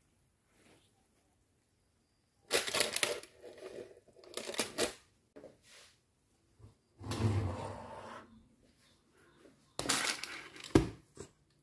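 A metal pizza pan being handled out of an oven with a cloth towel: several short bursts of scraping and rustling as it is slid off the wire oven rack, then a sharp knock near the end.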